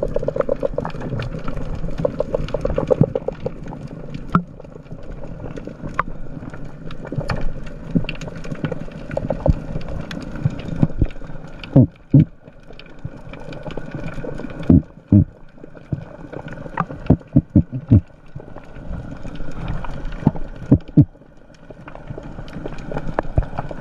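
Underwater sound picked up by a diver's camera while swimming over rocks: a constant rough noise with a scatter of small clicks, and from about halfway on a run of irregular dull knocks.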